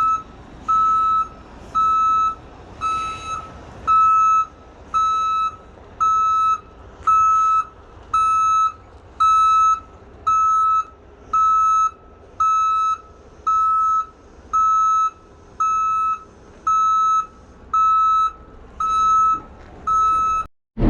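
Vehicle reversing alarm beeping steadily at one pitch, about once a second, over low engine noise.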